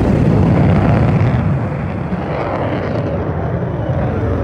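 Loud, low rumble of an F-22 Raptor's twin Pratt & Whitney F119 turbofan engines passing overhead in flight, peaking about a second in and slowly fading.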